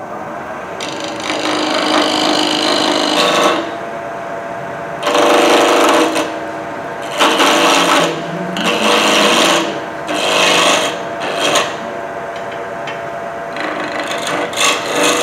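Wood lathe running with the wooden blank spinning, while a tool is pressed against the wood in a series of short rasping passes, each lasting one to two seconds.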